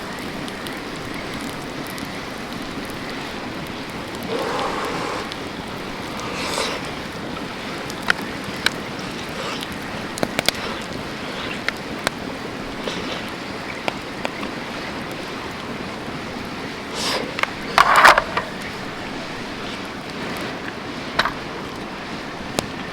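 Steady rush of a mountain stream, with scattered small clicks and knocks and a few short louder sounds over it.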